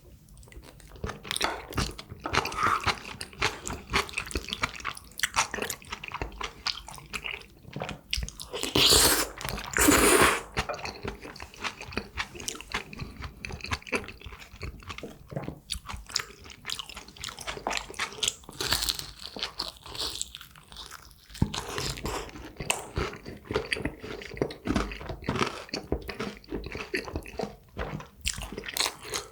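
A person eating close to the microphone: irregular chewing with crunchy bites, typical of crispy fried tangsuyuk pork. Two louder, longer rushes of noise come about a third of the way in.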